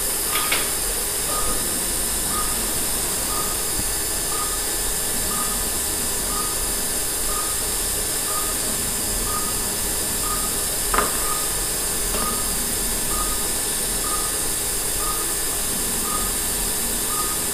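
Operating-room patient monitor giving a short, soft beep about once a second, the pulse-oximeter tone following the patient's heartbeat, over a steady hiss. A single click comes about eleven seconds in.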